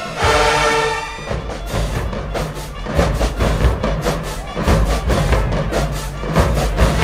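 Marching band playing: a held brass chord, then from about a second in the drumline takes over with rapid, steady drum hits and heavy bass drums.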